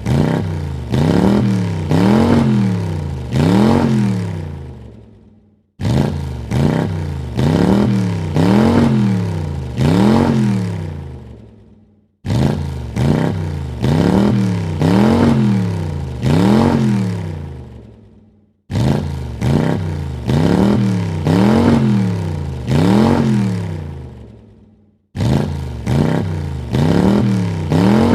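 A car engine revved in four quick throttle blips, each rising and falling in pitch, the last the longest, then dying away. The same short recording repeats about every six seconds, five times over.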